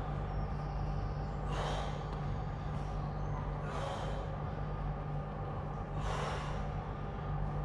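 A man breathing out hard with each rep of dumbbell upright rows: three forceful exhales about two seconds apart, over a steady low hum.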